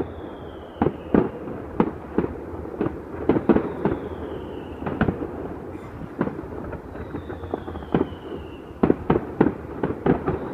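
Distant fireworks going off: irregular bangs and crackling pops, several in quick succession at times, with a faint falling whistle three times.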